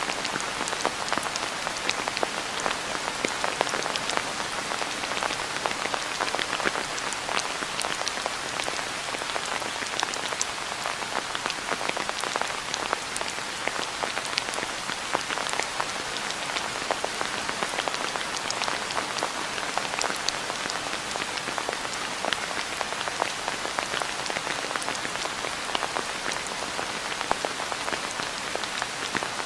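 Steady rain falling, an even hiss dotted with many separate drops striking close by.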